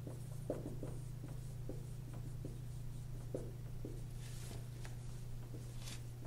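Dry-erase marker writing words on a whiteboard: a run of short strokes and scratches, over a steady low hum.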